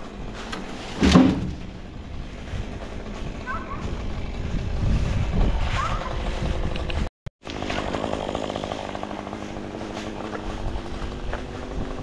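A chainsaw running, with a loud thump about a second in. The sound cuts out for a moment a little past halfway, then the engine's steady note carries on.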